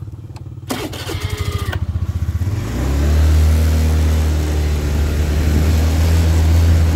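Small vehicle engine running with a pulsing beat, then revving up about two and a half seconds in and holding a loud, steady note as it moves off, with wind on the microphone.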